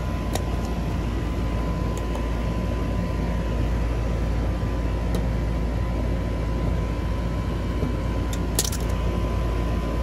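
Goodman outdoor air-conditioner condensing unit running steadily, its compressor and fan giving a low drone with a thin steady hum over it. A few sharp clicks come through it, twice in the first couple of seconds, once mid-way and in a quick cluster near the end.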